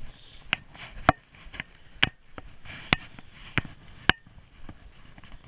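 Footsteps on a wooden pier deck, sharp knocks about every half second to a second, with a faint hiss between them.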